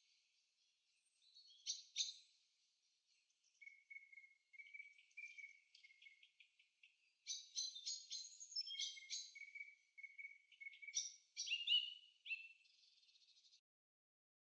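Faint birdsong: scattered short chirps, twitters and trills from several birds, thinning out and stopping about a second before the end.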